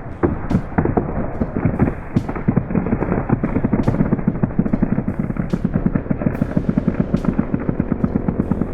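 Background music with a steady drum beat, over a rapid, even train of knocks about ten a second.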